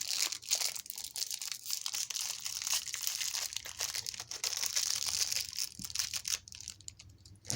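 Plastic packaging crinkling and rustling as it is handled, with many small crackles. It stops about six and a half seconds in.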